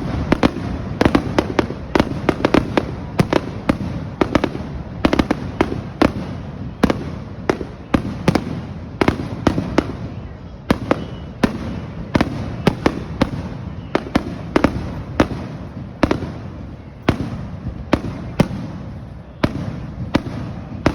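Fireworks going off: a fast, irregular string of sharp bangs, several a second, over a continuous rumble of bursts.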